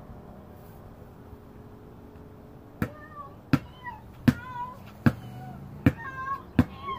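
Basketball bouncing on a concrete driveway, sharp bounces about once every three-quarters of a second starting about three seconds in. Between the bounces a child makes high, wavering meows, imitating a cat.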